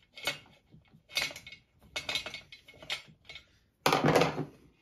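Metal hand tools clicking and scraping against the chainsaw as the muffler bolts are loosened and taken out, with a louder rattling clatter lasting about half a second near the end.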